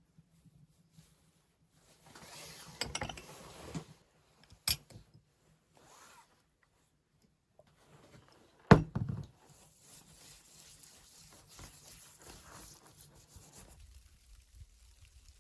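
Handling noises: a rasping rustle for about two seconds, a sharp click, then a loud, sharp knock, followed by faint rustling.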